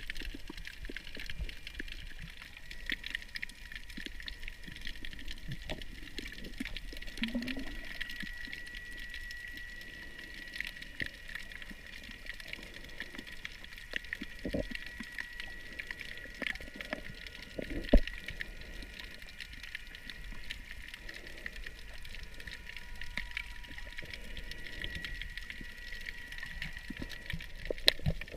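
Underwater sound muffled by a GoPro waterproof housing: a steady low rush of water with scattered small clicks and crackles and a thin steady high whine. A few sharper knocks stand out, the loudest about two-thirds of the way through.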